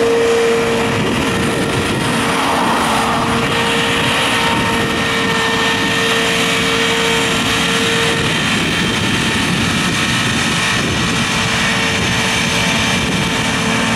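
John Deere 9660i combine harvester running as it cuts barley close by: a loud, steady machine noise from its engine and threshing gear. A steady whine runs through it for the first eight seconds or so.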